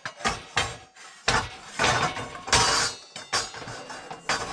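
Metal Omnia stovetop oven pan being lifted off its base and moved on a camp stove: a series of clanks, knocks and scrapes of metal on metal.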